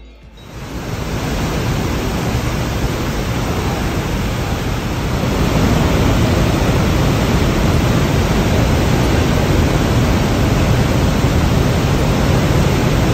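Steady rushing of a waterfall, an even loud noise with a strong low rumble that fades in over the first second.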